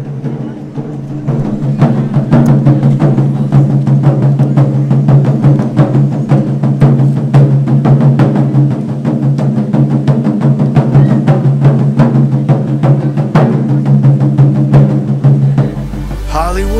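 Japanese taiko drum ensemble playing live: fast, dense drum strikes over a deep, steady resonance. Near the end it cuts abruptly to a different piece of background music.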